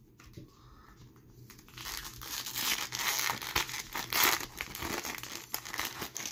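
Foil wrapper of a Tim Hortons Upper Deck hockey card pack crinkling and tearing as it is ripped open by hand, starting about two seconds in.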